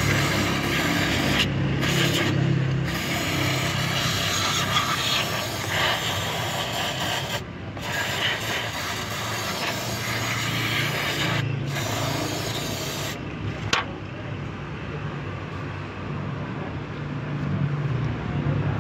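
Aerosol cleaner hissing out of a spray can through a straw onto oily engine metal, in long bursts with short breaks. The spray cuts off about 13 seconds in, and a rag rubbing over the cleaned surface follows.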